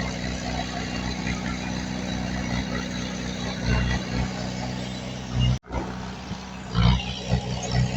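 Heavy diesel engine of earthmoving machinery running steadily, with a few swells in power. The sound cuts out for an instant about five and a half seconds in.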